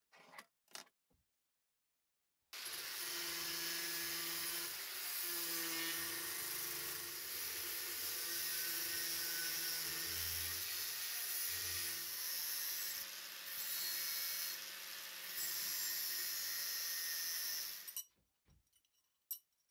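Angle grinder with a thin cut-off disc cutting through a bar of knife steel clamped in a vice: a steady, harsh grinding over the motor's hum, starting about two and a half seconds in and cutting off suddenly near the end. The motor tone wavers a few times as the disc loads in the cut. A few light ticks from handling the steel come before and after.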